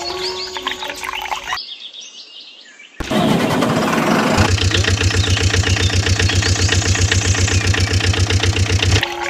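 An engine starting with a sudden burst about three seconds in, then settling into a steady idle with a rapid, even beat and a low hum. It stops just before the end, where background music comes back in.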